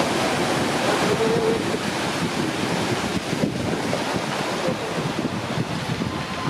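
Sea surf washing in continuously, with wind noise on the microphone.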